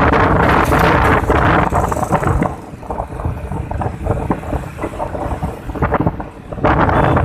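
Wind rushing over a phone's microphone while riding in a moving vehicle, with a steady engine hum underneath. The wind noise drops for a few seconds in the middle and comes back loud near the end.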